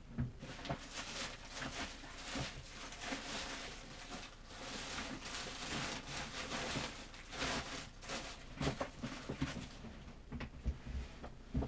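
Irregular rustling in waves with light taps and knocks, the noise of materials being handled on a craft table.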